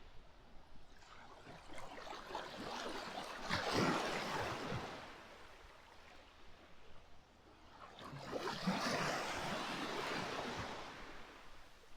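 Gentle surf on a sandy beach: two small waves break and wash up the shore about five seconds apart, each swelling and then fading.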